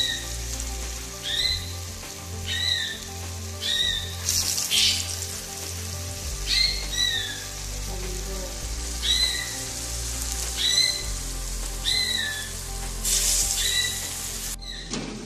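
Cassava combro fritters deep-frying in hot oil in a wok: a steady sizzle that swells at moments and cuts off suddenly near the end. Under it runs background music with short high chirps repeating about once a second.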